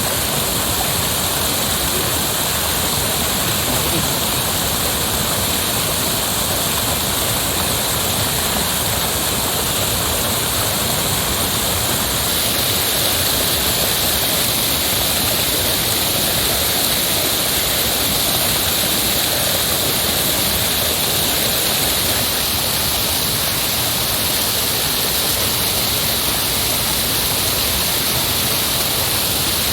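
Heavy rushing water, a steady dense roar without a break or change.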